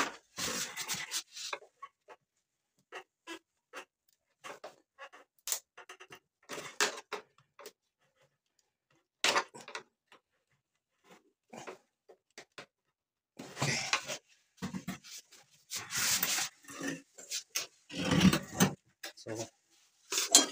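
Hand tool clicking and scraping against the crimped metal clips of a radiator core header, prying them open to free the plastic top tank. Irregular single clicks at first, then denser runs of scraping in the last third.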